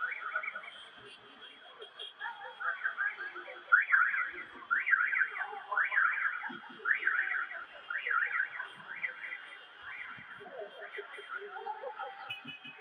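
Voices of a marching crowd chanting in a steady rhythm, a call about every two-thirds of a second, strongest in the middle.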